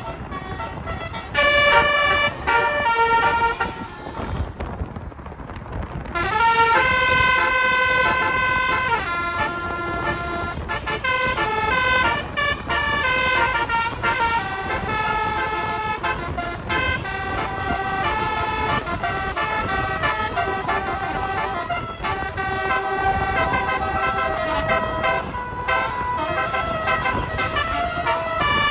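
Bus telolet horn: a multi-tone Basuri air horn with roof-mounted trumpets playing a melody of held notes that step up and down in pitch. A few short notes, a pause of about two seconds, then a long unbroken run of notes.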